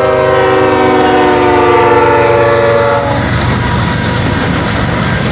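Diesel locomotive horn blaring a chord as a freight train reaches the crossing, dropping slightly in pitch and cutting off about three seconds in. The lead locomotives then rumble and clatter past close by.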